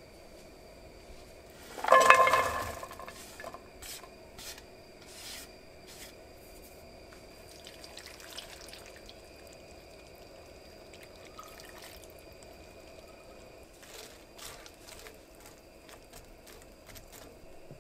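A frying pan knocks on the gas stove's metal grate about two seconds in and rings briefly. After that come light clicks and rustles as diced onion is tipped into the pan and worked with kitchen tongs, over a faint steady hum.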